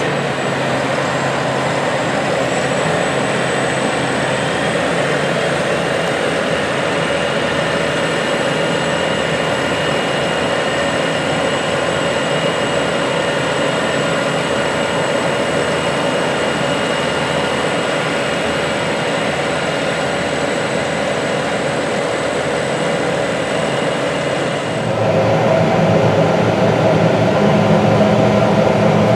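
Heavy diesel farm machinery running steadily, with a thin high steady whine over the engine noise. About 25 seconds in the sound changes abruptly to a louder, fuller engine sound.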